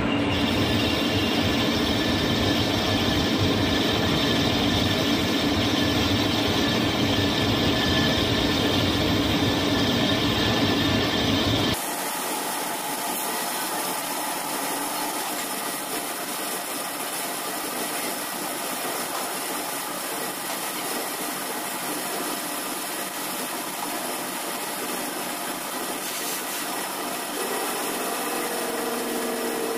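CNC lathe running, its spindle turning a metal lock pin while the tool cuts it, giving a steady machining noise. About twelve seconds in, the sound changes abruptly, losing its low rumble.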